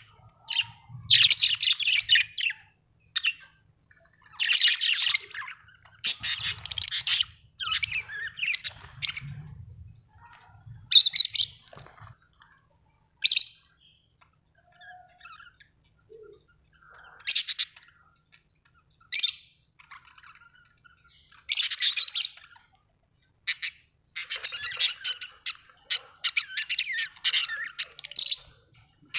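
Budgerigar chirping and chattering in short runs of quick high chirps, with pauses of a second or two between them and a long, dense run of rapid chirps near the end.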